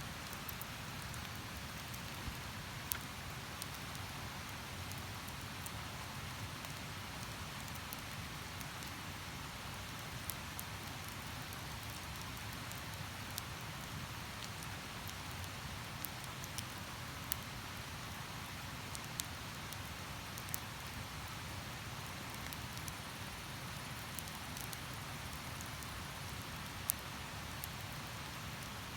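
Wood campfire crackling, with a sharp pop every few seconds, over the steady rush of a stream.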